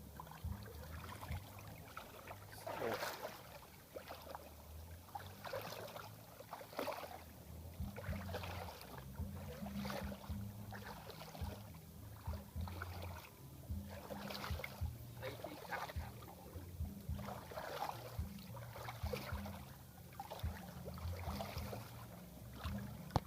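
Water splashing and sloshing in irregular bursts every second or two, over a steady low rumble.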